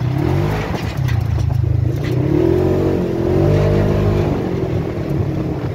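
Polaris RZR side-by-side's engine running under way, heard from the cab, rising and falling in pitch through the middle as it accelerates and eases off, with scattered light knocks and rattles.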